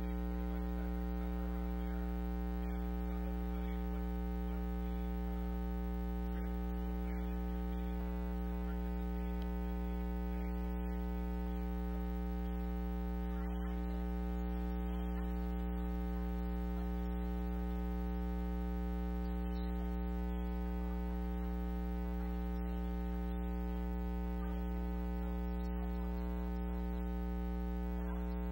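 Steady electrical mains hum, a low buzz with many even overtones that holds unchanged throughout and covers the sound track.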